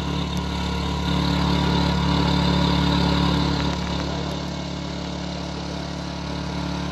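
An engine idling steadily, a low even hum that swells slightly for a couple of seconds in the middle.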